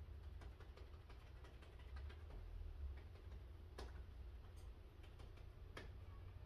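Faint scattered small ticks and clicks, with two sharper clicks about four and six seconds in, over a low steady rumble.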